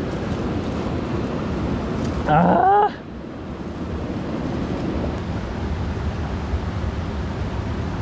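Steady rush of a mountain stream with wind on the microphone. About two seconds in, a short, loud call rises and falls in pitch for about half a second.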